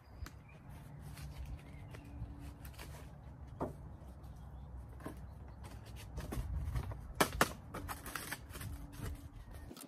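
Wind rumbling on the microphone, with scattered rustles and scrapes of gloved hands working soil and setting seedlings in a raised bed. Two sharper clicks come a little past halfway.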